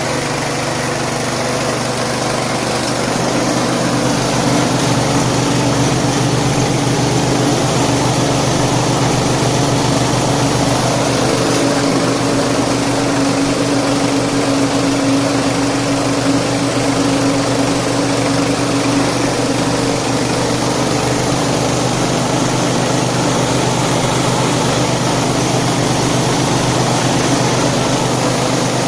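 Small rice milling machine running steadily: a constant, loud mechanical drone.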